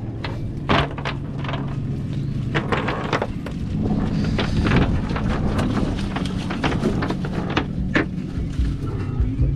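Small boat's outboard engine idling with a steady low hum, with irregular knocks and clatter of gear on the boat.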